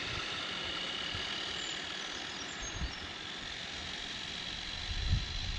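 Steady wind noise on the microphone, with two brief low gusts about 3 and 5 seconds in.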